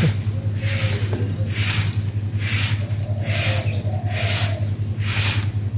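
Broom sweeping the ground in steady strokes, about one swish a second.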